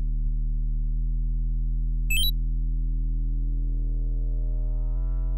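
Electronic background music: a sustained low synthesizer chord that shifts about a second in and again near the end, with a quick rising run of high beeps just after two seconds in.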